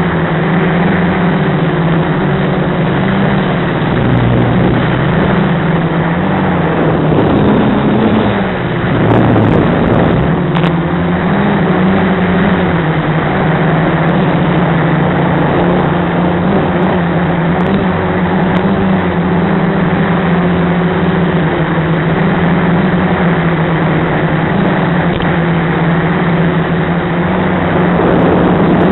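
Quadcopter's SunnySky brushless motors and propellers droning steadily in flight, heard from on board. The pitch wavers as the throttle changes, with a brief dip and surge about eight to ten seconds in.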